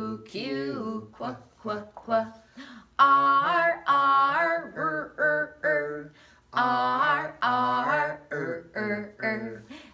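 A woman and a man singing a phonics letter-sound chant, in short sung phrases with brief breaks between them. Held notes start about three seconds in.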